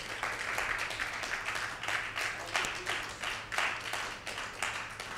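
Congregation applauding, a ragged spatter of handclaps that swells and fades away near the end.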